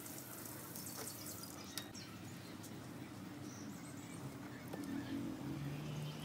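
Quiet outdoor background with a couple of faint clicks. In the last second or so, low steady tones fade in as background music begins.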